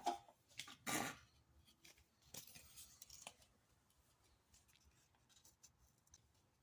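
Hands handling small plastic toy pieces and stickers: a few brief rustles, taps and a short scrape in the first three seconds, then only faint ticks.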